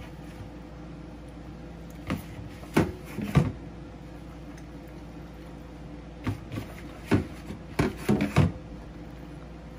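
Gloved hands rubbing and squeezing a raw whole hen over a plastic bowl: short, irregular wet squelches and rubs in two bunches, over a steady low hum.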